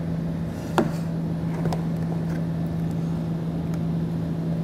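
A few short clicks of a plastic trim panel tool prying against the hidden clips of a plastic bumper trim panel, the sharpest about a second in, over a steady low hum.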